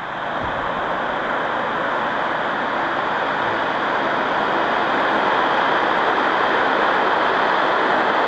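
De Havilland Canada DHC-7 Dash 7's four PT6A turboprop engines and propellers running as the aircraft rolls along the runway: a steady rushing noise that grows louder through the first few seconds, then holds.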